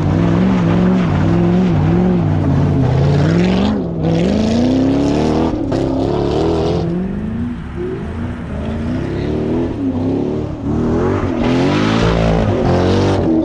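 Chevrolet Corvette C6's V8 engine revving up and down over and over as the car drifts on a dirt track, with the hiss of the rear tyres throwing dirt. The revs ease off about halfway and climb again near the end.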